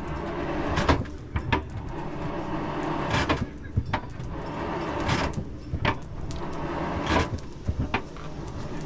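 Blacksmith's hammer striking iron on an anvil in irregular blows, some in quick pairs, over a steady low background noise.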